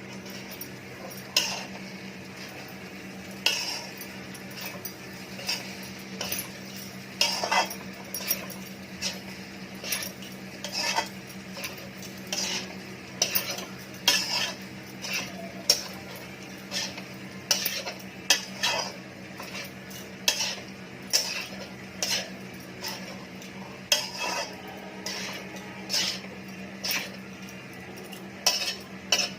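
A metal spoon scraping and knocking against a tawa (flat iron griddle) while rice pulao is stirred and mixed, in irregular strokes about once or twice a second, over a steady low hum.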